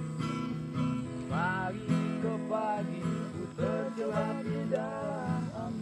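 Background music: a strummed acoustic guitar, with a voice singing a melody over it from a little over a second in.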